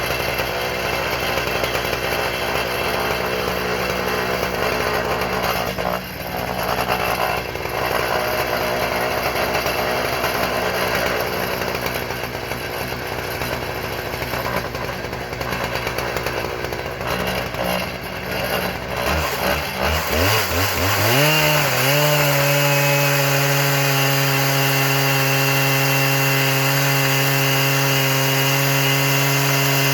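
Husqvarna 3120 two-stroke chainsaw on an Alaskan mill running hard through wood. About two-thirds of the way in the engine speed climbs and then holds at a steady high pitch.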